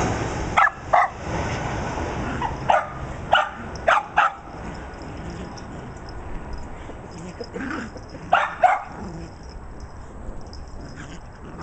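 Shiba Inu puppies yipping: short, high barks, about six in quick succession over the first four seconds, then two more close together around eight and a half seconds in.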